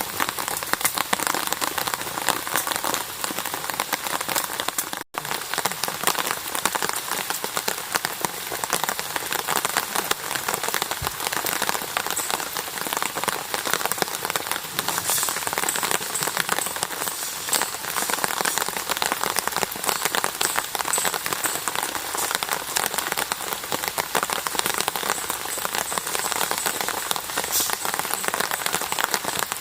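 Rain falling steadily, a dense patter of many drops hitting a surface. The sound drops out for an instant about five seconds in.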